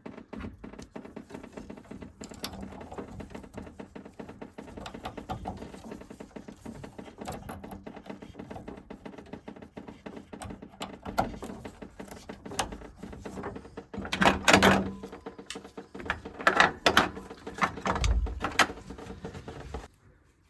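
Hands working on boiler parts and tools: a run of small irregular clicks, taps and rattles, with louder clattering twice past the middle, over a faint steady hum.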